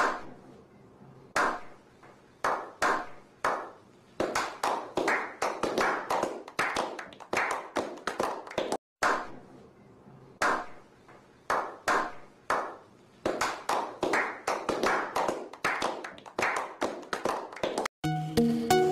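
Rhythmic hand percussion: a run of sharp claps and hand taps at an uneven, rhythmic spacing, each with a short ringing tail and shifting in pitch. There is a brief break about nine seconds in, and music comes in near the end.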